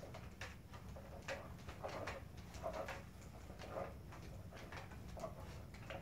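A large hand-operated seagull puppet being swung and flapped about: faint, irregular clicks, taps and rustles from its rods, handle triggers and fabric wings.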